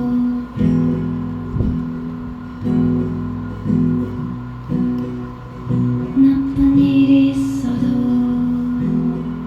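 Acoustic guitar strumming chords in an instrumental passage, a new chord struck about once a second and left to ring.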